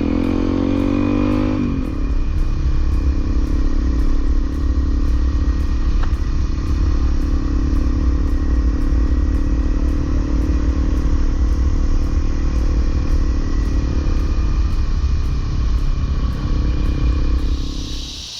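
Honda CRF250L single-cylinder trail bike engine running under way, its note easing down about two seconds in, with a heavy low rumble. The sound cuts off near the end.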